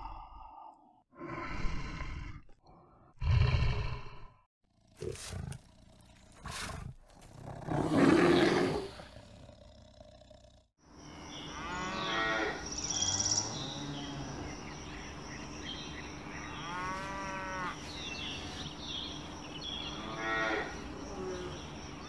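Brown bear growling in several short rough bursts, the loudest about eight seconds in. After a break, birds sing in repeated phrases over a steady background noise.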